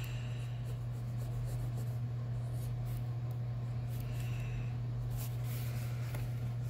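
Pencil scratching on paper in short strokes while drawing: one near the start, another about four seconds in, and another near the end. A steady low hum runs underneath.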